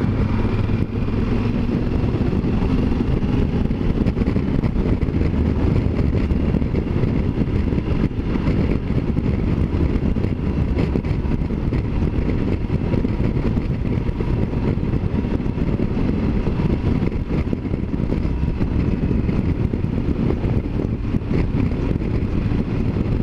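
Yamaha Super Ténéré 1200 parallel-twin motorcycle at a steady cruise, engine running evenly under a constant rush of wind and road noise.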